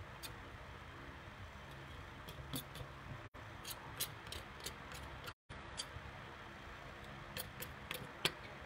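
Scattered light clicks and taps of food-preparation work over a steady background hum; the sound cuts out briefly twice.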